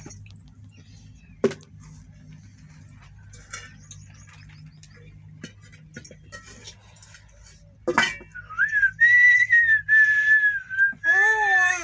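A person whistles one long, high, steady note with slight wavers, starting about eight seconds in. Near the end a small child's voice rises and falls alongside it. Before that there is only a faint low hum and a few small clicks.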